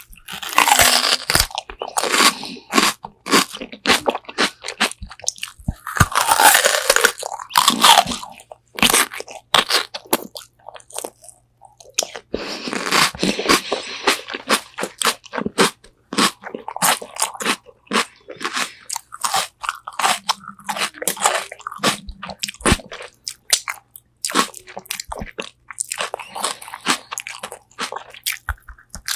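Close-up eating: biting into and chewing crispy Korean fried chicken wings, loud dense crunches with quieter spells of chewing and crackles between them. Heard through a binaural microphone held close to the mouth.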